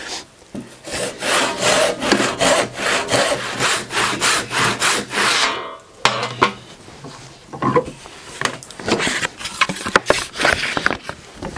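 Handsaw resawing a soft pine board along the grain into veneer, in quick, even back-and-forth strokes. The strokes break off briefly about halfway through, then carry on less regularly.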